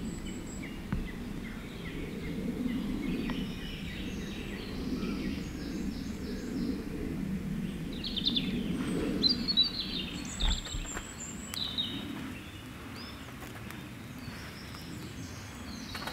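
Woodland birds chirping and calling in short scattered phrases over a steady low outdoor rush, with a few sharp cracks from the small wood fire burning in the stove.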